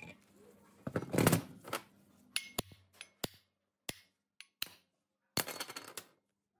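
Old single-phase exhaust-fan motor being taken apart on a steel bench: a scraping clatter as the rotor comes out of the stator, then about six sharp, ringing metal-on-metal hammer taps knocking the end shield off the rotor shaft, and a short rattle of metal parts near the end.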